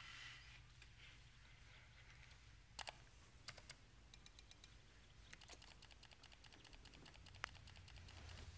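Near silence with a low steady hum, broken by a few faint, sharp clicks scattered through it and a short run of rapid faint ticks in the middle.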